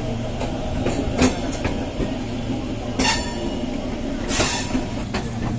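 Indian Railways passenger coach running along the track, heard from its open doorway: a steady rumble from the wheels and running gear, with a few sharp metallic clanks from the wheels on the rails.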